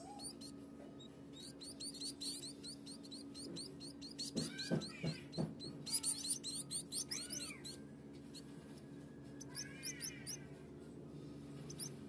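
Fifteen-day-old society finch nestlings begging while being hand-fed: fast runs of high, squeaky chirps with a few rising-and-falling calls, loudest in the middle and briefly again near the end.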